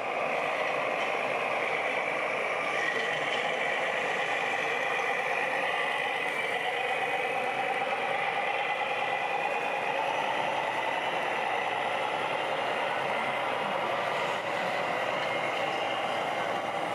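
Scale RC model trucks running on an indoor track, a steady engine-like sound whose pitch drifts slowly up and down over a constant din.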